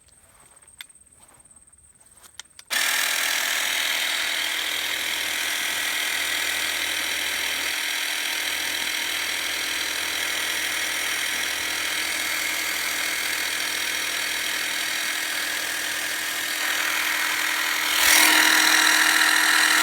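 Cordless battery-powered pressure washer cutting in suddenly after a few light clicks, its pump motor running with a steady whine and the water jet spraying, growing louder near the end.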